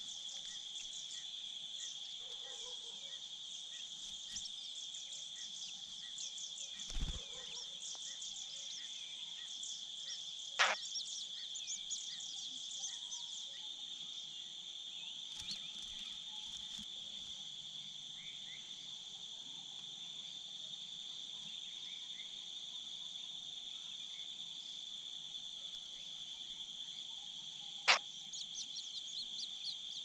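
Steady, high-pitched drone of insects, like crickets, with many short, thin chirps over it. Two sharp knocks, about ten seconds in and near the end, and the chirping grows denser after the second.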